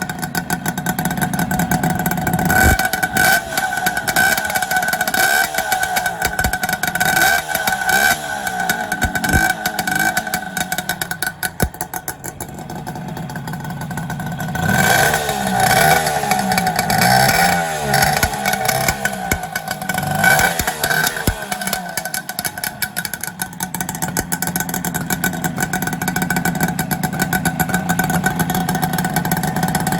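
Kawasaki KH250 three-cylinder two-stroke engine running on expansion-chamber exhausts: idling with throttle blips, a quieter stretch just before the middle, then a run of quick revs rising and falling, before it settles back to steady running.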